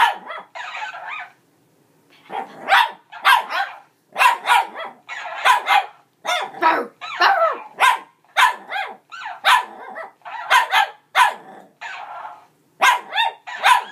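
A Shih Tzu puppy barking at a sock monkey toy: a long run of short, repeated barks, pausing briefly about two seconds in, then coming every half second or so.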